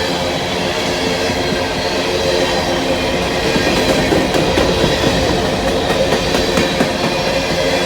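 Empty coal hopper cars of a long freight train rolling past, wheels clacking over rail joints under a steady rumble, with a run of clacks in the middle. Steady ringing tones sit over the rumble throughout.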